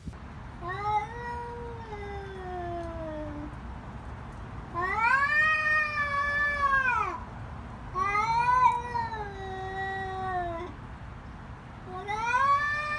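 Cats in a fighting standoff, yowling: four long, drawn-out caterwauls, each rising and then falling in pitch, with short pauses between them.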